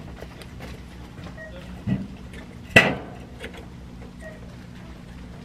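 Shop ambience: a steady low hum, with a dull thump about two seconds in and then a sharp clack just under three seconds in, as merchandise is taken down from a pegboard display.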